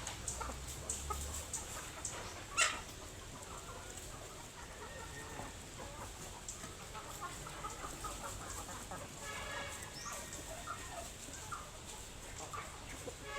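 Chickens clucking, with a sharp knock about two and a half seconds in.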